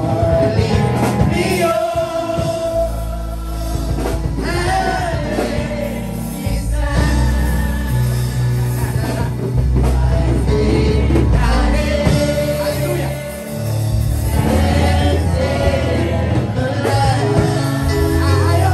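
Gospel song: a man singing lead into a microphone over musical accompaniment with a prominent bass line.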